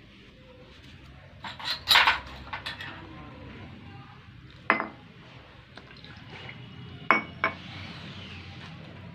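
A metal spoon clinking and knocking against a plastic bowl of multani mitti powder: a quick cluster of clicks, then single sharp knocks. Water is poured in near the end, with a soft hiss.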